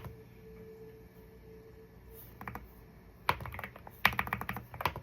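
Typing on an Akko wooden keyboard: after a quiet start, three quick bursts of key clicks in the second half.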